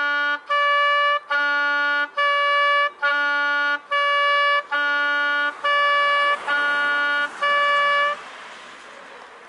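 Clarinet playing a short tune of about ten evenly spaced held notes, then stopping about eight seconds in.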